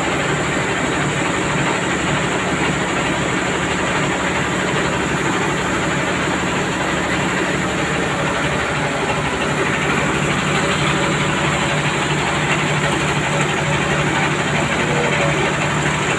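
Rice milling machine running steadily: a loud, even mechanical noise with a constant low hum and no breaks.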